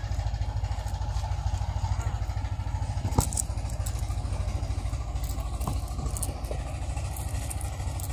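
A motor engine running steadily with an even, low, pulsing throb, and one sharp knock about three seconds in.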